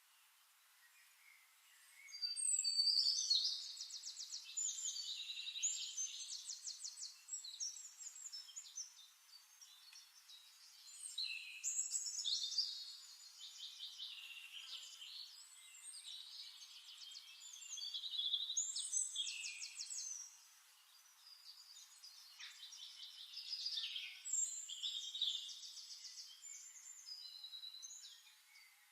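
A songbird singing four long, varied bursts of quick high trills and chirps, with short pauses between them.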